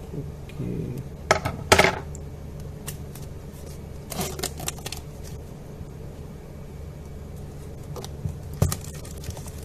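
Clear plastic shrink-wrap being cut and peeled off a small cardboard phone box: scattered crinkles and clicks, the loudest about two seconds in and another cluster a couple of seconds later, over a steady low hum.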